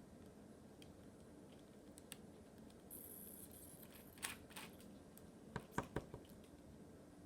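Near silence in a small room, broken by a few faint sharp clicks and taps in the second half, the last three in quick succession.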